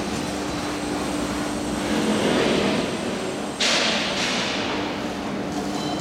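Factory-floor noise: a steady machinery hum under a constant noisy wash, with a sudden loud burst of hissing noise about three and a half seconds in that dies away within half a second.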